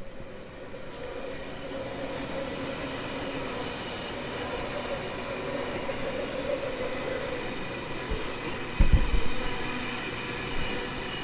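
Sydney Trains electric passenger train running past along the platform: steady rail and running noise with a held whine. A brief low thump comes about nine seconds in.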